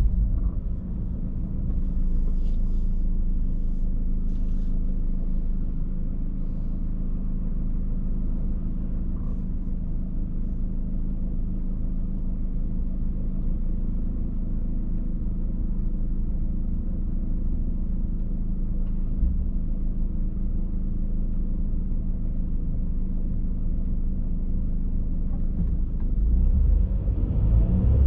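Car driving, heard from inside the cabin: a steady low rumble of road and engine noise with a steady hum. It grows louder near the end.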